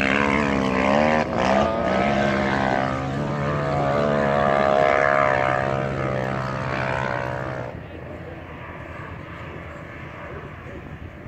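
4x4's engine revving hard under load as it powers up a soft sand dune, its pitch gliding and stepping up and down. About eight seconds in the sound drops suddenly to a much fainter engine drone.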